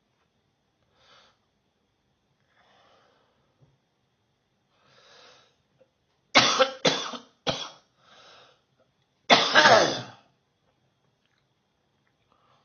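A person coughing. After a few faint sounds, three sharp coughs come in quick succession about halfway through, then one longer, louder cough near the end.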